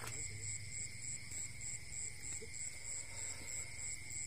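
Night insects chirping: a high, shrill chirp pulsing about twice a second over a steady high trill.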